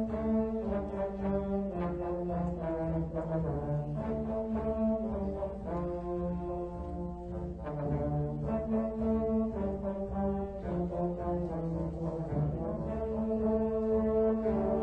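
Background orchestral music led by brass, playing slow held chords that change about once a second.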